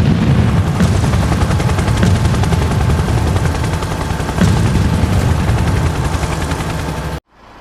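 Loud, dense rapid gunfire over a heavy low rumble, cutting off suddenly near the end.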